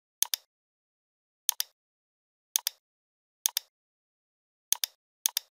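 Computer mouse button clicks: six short clicks at irregular intervals of about a second, each a quick double tick of the button pressing and releasing.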